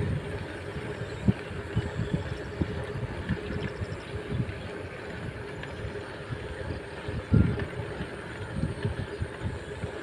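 A vehicle's engine running steadily while moving along a road, with road and wind noise and irregular low thumps of wind buffeting the microphone.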